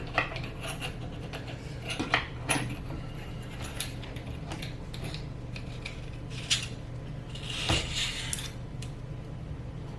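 Metal clicks and clinks of a sling mount clamp being handled and fitted onto an AR-15's tube: scattered sharp taps, with a short run of rattling clicks about eight seconds in.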